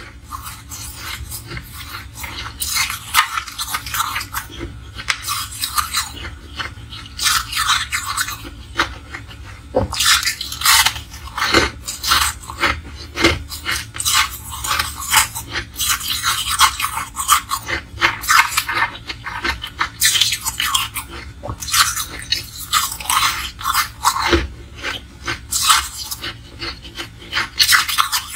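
Chewing and crunching of a fluffy, snow-like block of frozen ice, close on a clip-on microphone: dense crackling crunches in clusters, one bite after another with short pauses between.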